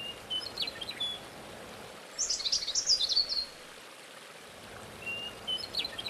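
Birds singing over a steady rushing noise of running water. A short whistled phrase comes near the start and again near the end, with a quick high twittering in between.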